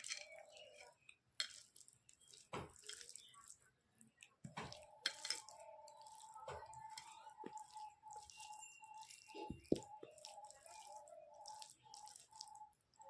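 Close-up wet eating sounds: chewing and lip smacking on rice, chokha and stuffed tomato, with sharp clicks and squelches. A steady faint tone joins about four and a half seconds in.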